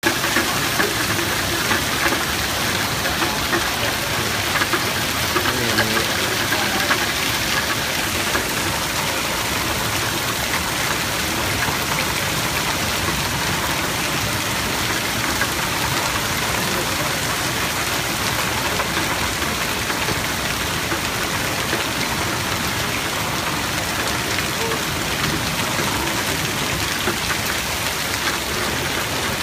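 Torrential rain mixed with hail pouring down onto a flooded street, lawn and pavement: a dense, steady hiss, with scattered sharper ticks in the first several seconds.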